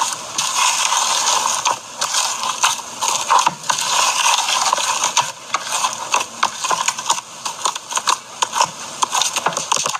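Crunchy slime being worked, giving a dense, continuous run of crackles and small pops.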